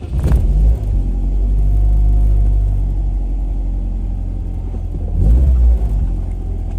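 Car engine running hard under acceleration with a deep rumble, coming on suddenly at the start and surging louder again about five seconds in.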